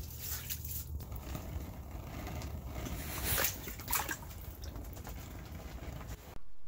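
Water and slush splashing and dripping in an ice-fishing hole as a yellow perch is handled over it and let back into the water. The sound cuts off abruptly near the end.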